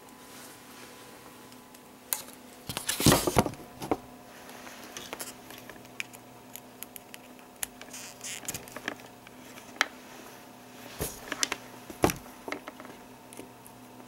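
Handling noise as multimeter test leads and clips are hooked up: scattered clicks and rustles, the loudest cluster about three seconds in, over a faint steady hum.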